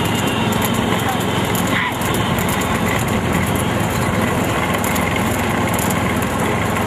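Small vehicle engine running steadily while driving, with road and wind noise.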